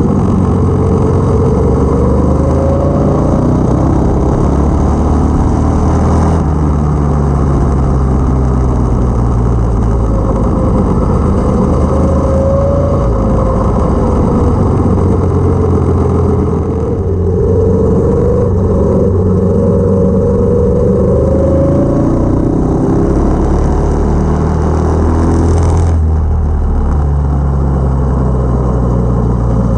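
A 212cc single-cylinder go-kart engine with a Stage 1 kit running as the kart is driven, its pitch rising and falling with the throttle.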